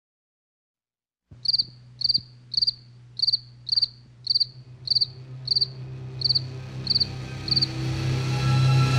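A cricket chirping, about two short pulsed chirps a second, which stop about seven and a half seconds in. A low droning hum starts with the chirps and swells beneath them toward the end.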